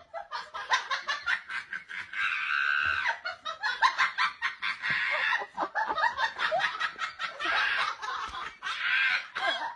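People laughing hard, in quick repeated bursts with a few longer breathy stretches.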